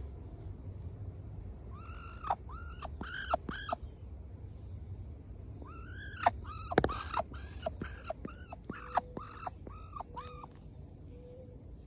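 Muscovy duck giving short chirping calls while nibbling at fingers: a run of about five calls a couple of seconds in, then a longer run of about nine from about six seconds in. A sharp click comes in the middle of the second run.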